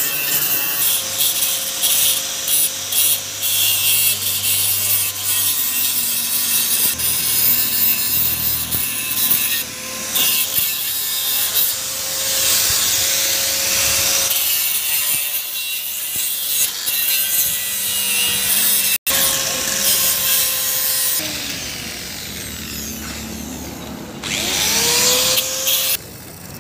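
Electric angle grinder with its disc grinding into the steel swingarm of a Bajaj Discover motorcycle, a steady motor whine under harsh abrasive noise that shifts as the disc bites. The grinder falls away near the end.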